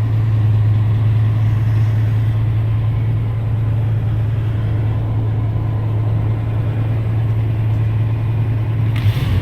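1987 Jeep Grand Wagoneer's AMC 360 V8 idling steadily, just after being started, with an even low hum.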